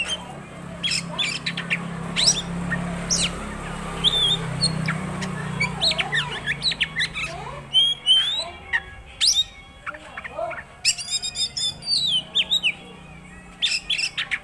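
Oriental magpie-robin (kacer) singing a varied song of sharp whistles, rising and falling slurs and clicking notes, with a fast run of notes about two-thirds of the way in, stringing together its repertoire of phrases.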